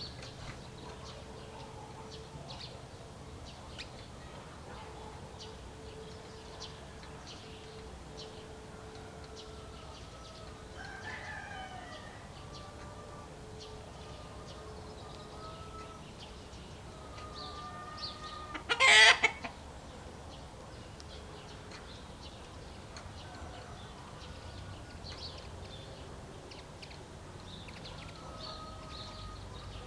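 Farmyard chickens, roosters crowing and hens clucking, over small birds chirping. About two-thirds of the way in comes one loud, short call close by, much louder than the rest.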